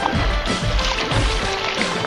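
Background music playing, with a steady low beat.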